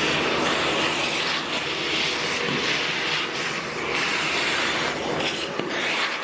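Miele Compact C2 Cat and Dog canister vacuum running at full suction, a steady rushing whine that wavers a little as the nozzle draws up small foil-like flakes of debris.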